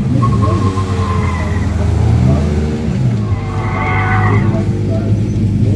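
Tyres of a Tesla Model 3 squealing as it is driven hard through an autocross cone course: a short squeal in the first second or so and a longer, stronger one about three to four seconds in. A steady low engine drone runs underneath.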